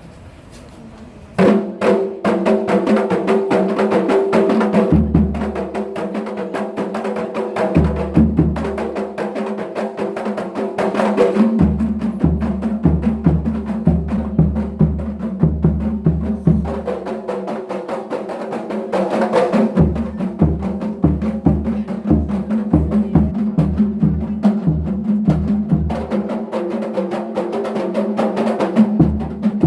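Music with percussion and a repeating bass-drum beat over held pitched notes, starting suddenly about a second and a half in.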